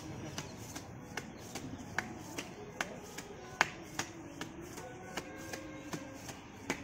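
Sharp slaps of bare hands striking and grabbing a tree trunk in a steady rhythm, about two or three a second: a wrestler's grip-strengthening drill.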